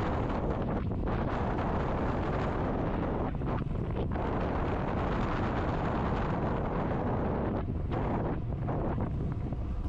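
Wind buffeting the microphone: a steady, low rumbling rush.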